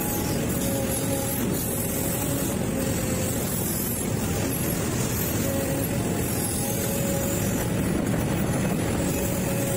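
Sumitomo hydraulic excavator's diesel engine running steadily as the boom and bucket work, heard from the operator's cab, with a faint whine that comes and goes.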